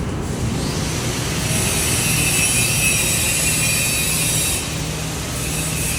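TIG welding arc hissing steadily for about three seconds, starting a second and a half in and cutting off abruptly, over a steady low hum.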